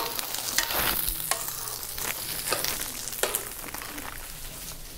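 Snow peas and sugar snap peas sizzling in olive and sesame oil in a nonstick pan as they are stir-fried, with the spatula knocking and scraping against the pan every half-second to second. The sizzle slowly fades.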